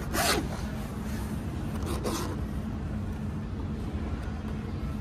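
Hand rubbing across a BYD Dolphin's inner door trim panel: two short scrapes, one at the very start and one about two seconds in, over a steady low hum.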